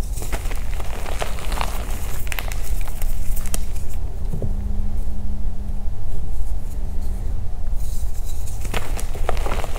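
Water-reformed violet gym chalk crunching and crumbling as pieces are squeezed and crushed in bare hands, crackly through the first few seconds and again near the end. A steady low rumble runs under it.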